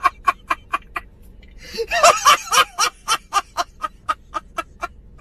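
A man laughing hard in rapid 'ha-ha' bursts, about four to five a second, with a brief lull about a second in and the loudest stretch around two seconds in.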